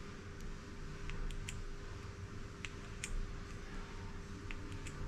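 Scattered light metallic clicks and ticks from a boring-bar cutter being adjusted by hand in a micrometer setting tool, over a steady low hum.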